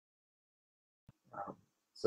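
Near silence, broken about a second and a half in by a brief, faint sound of a man's voice at the microphone.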